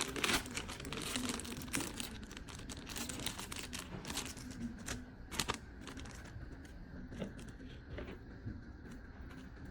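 Packaging crinkling and rustling as it is handled and unwrapped, with scattered sharp clicks and taps; busiest in the first few seconds, sparser after that.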